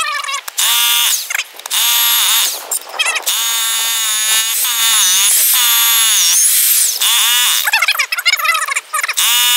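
Hilti electric rotary hammer drilling an anchor hole into concrete. It comes in several short trigger bursts, each spinning up with a rising whine, then one longer run of about four seconds whose pitch dips and wavers under load, and another burst near the end.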